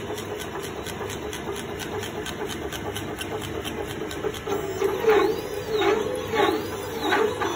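Stepper motors of a mini 3040 CO2 laser engraver driving the laser head back and forth on a raster fill-engraving pass: quick regular ticks about five a second as the head reverses, over a steady hum. About two-thirds through, the strokes lengthen and the motor whine rises and falls about once a second.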